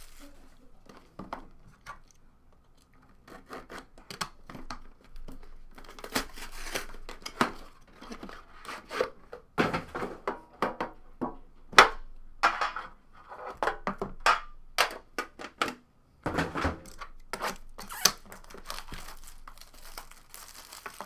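Hands unpacking a 2014 Upper Deck Exquisite Golf trading-card box: cardboard sliding and scraping, clear plastic wrap crinkling and tearing, and a few sharp knocks of the box against the table, in irregular bursts.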